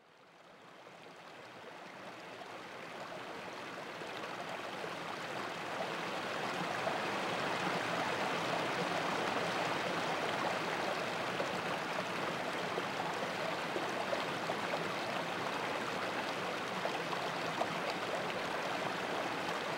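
Steady rushing and babbling of a shallow mountain stream running over rocks, fading in over the first few seconds and then holding steady.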